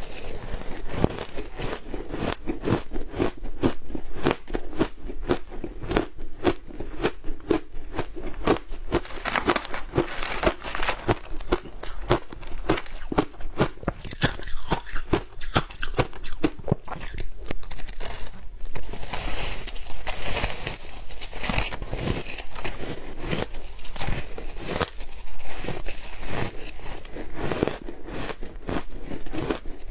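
Frozen shaved ice coated in matcha and milk powder being bitten and chewed up close: a dense run of crisp crunches, several a second.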